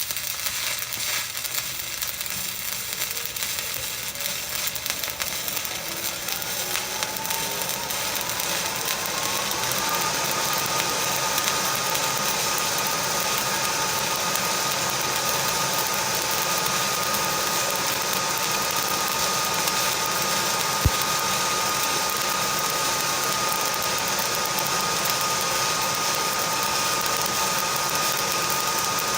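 Stick (SMAW) welding arc crackling steadily while running an uphill bead, with a machine whine that rises in pitch over the first ten seconds and then holds steady. A single sharp click about two-thirds of the way through.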